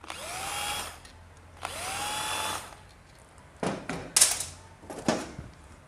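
Handheld power drill-driver run twice in bursts of about a second, each spinning up in pitch and then holding steady, as the motorcycle engine is taken apart to remove its balancer; a few sharp metal clinks follow in the second half.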